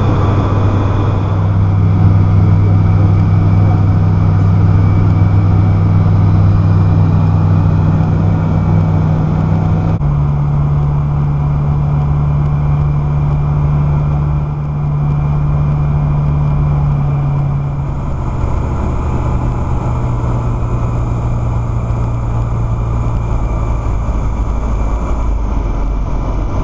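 Bristell ultralight's piston engine and propeller droning steadily over wind noise, heard from inside the cockpit. The engine note drops in two steps, about ten seconds in and again near twenty, as power comes back for the landing approach. A low rumble joins near the end as the aircraft rolls on the runway.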